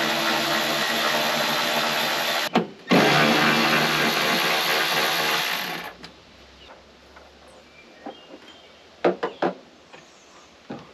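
Cordless drill-driver running at a steady speed in two bursts of about three seconds each with a brief pause between, driving out the fridge door's hinge screws as the doors are reversed. A few light clicks follow near the end.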